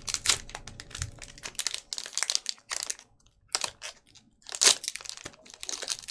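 Foil wrapper of a Pokémon trading-card booster pack crinkling and tearing as it is opened by hand, in irregular rustling bursts with a short pause about three seconds in.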